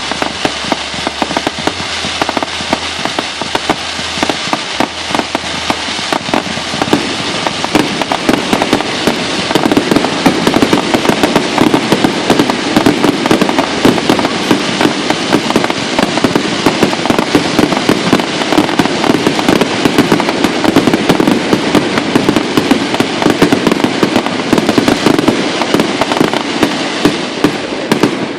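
Fireworks going off in a dense, continuous barrage of bangs and crackles, getting louder and thicker about eight to ten seconds in.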